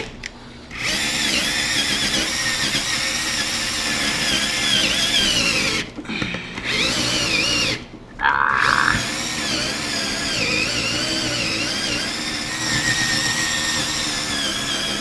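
Power drill turning a 1-inch hole saw through a thick desktop, its motor pitch wavering under load. It stops briefly twice, around six and eight seconds in, with a short loud tone just after the second restart.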